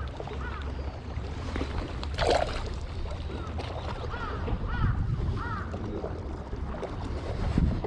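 Steady low rumble with several short, arching chirp-like calls repeating over it, and a brief rustling noise about two seconds in.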